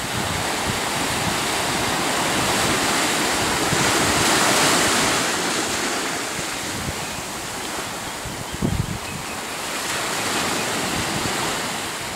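Small sea waves washing in on a beach, the surf swelling and easing twice, with wind buffeting the microphone and a low thump from it about two-thirds of the way through.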